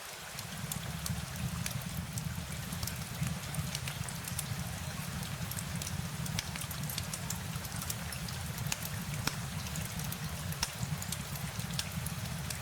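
Steady rain, a constant hiss with many sharp drop ticks scattered through it over a low, even rumble.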